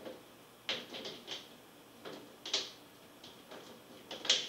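Plastic trays of a Salton five-tray food dehydrator clacking together as they are stacked and seated on the base. There are a handful of short knocks, the loudest near the end.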